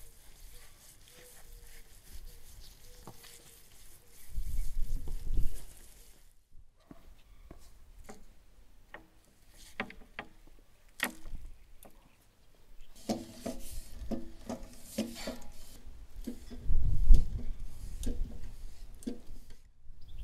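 Raw beef steaks handled on a wooden cutting board: soft wet rubbing and slapping of meat, with several sharp knocks on the wood. Two spells of deep rumble come and go.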